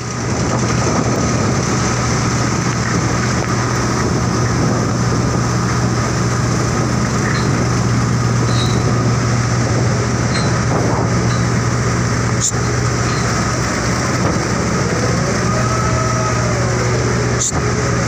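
Steady low drone of heavy ship and deck-crane machinery, with a deep constant hum. A couple of sharp clicks come about two-thirds of the way in and again near the end.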